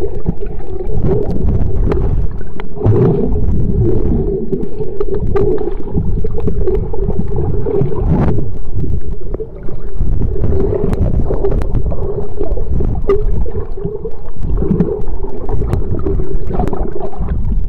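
Muffled underwater rumble and gurgling of water moving around a submerged camera, with a steady low hum and scattered sharp clicks.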